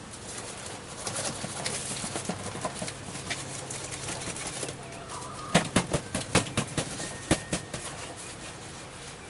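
Rustling and crinkling of packing material as grow-light fixtures are unpacked by hand, with a run of sharp knocks and clicks about halfway through.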